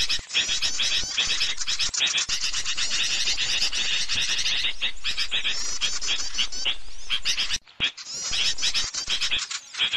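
Bird-lure recording of small birds: dense, rapid, high-pitched chirping and twittering that runs on without pause, except for a brief cut-out about three-quarters of the way through.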